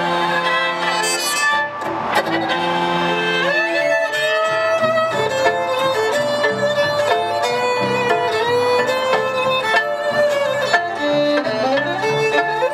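A violin playing a lively melody with slides between notes, over a live band's accompaniment.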